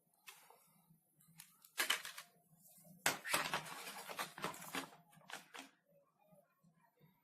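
Rustling and scraping of packaging and a USB cable being handled, in short bursts about two seconds in and again from three to five seconds in, over a faint low hum.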